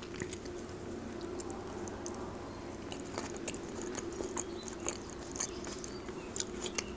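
Close-miked chewing of a mouthful of Caesar salad: scattered small crunches and wet mouth clicks, over a faint steady low hum.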